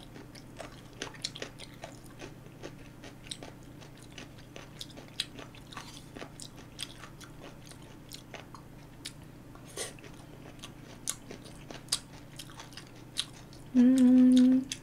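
Close-up chewing of chewy rice cakes in sauce: soft wet mouth clicks and smacks, scattered irregularly. Near the end comes a loud, steady hummed 'mm' from the eater's voice, lasting under a second.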